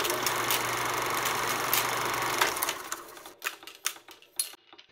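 A steady mechanical whirr with a low hum that winds down after about two and a half seconds, followed by a few separate sharp clicks before it cuts off.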